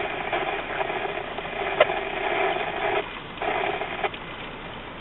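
Radio scanner hiss and static from an open, wordless transmission, with a brief drop-out about three seconds in and the noise falling off about a second later.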